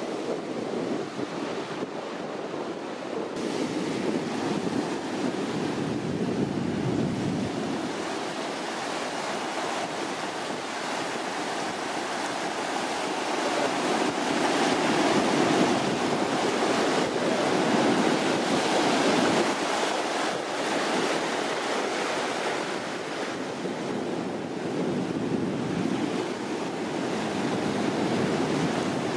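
Ocean surf washing onto the shore in swells that rise and fall, with wind buffeting the microphone.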